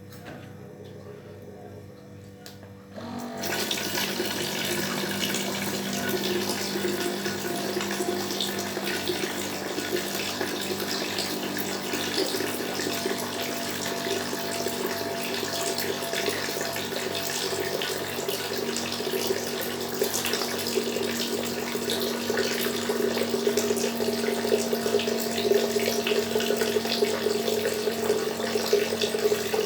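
Water running from a gallon water dispenser into a kettle. It starts about three seconds in and runs steadily, with a low hum underneath, growing slightly louder toward the end as the kettle fills.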